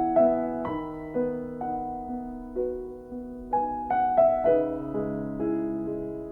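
Slow, gentle piano music: single notes and chords struck about every half second and left to fade.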